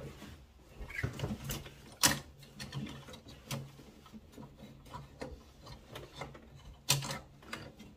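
Scattered clicks and sharp knocks of parts and tools being handled on an open combi boiler, two of them louder, about two seconds in and near the end, over a faint low hum.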